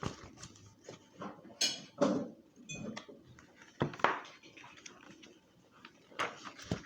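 Scattered small knocks and clicks of handling noise, with a short ringing clink about three seconds in.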